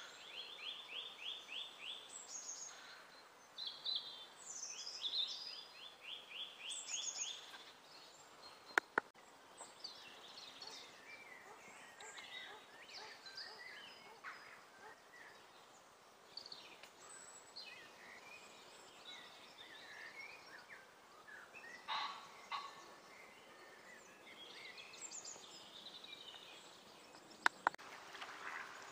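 Songbirds singing outdoors: a quick trilled phrase of evenly spaced high notes repeats a few times at first, followed by many scattered chirps and calls. Two sharp clicks stand out, about nine seconds in and near the end.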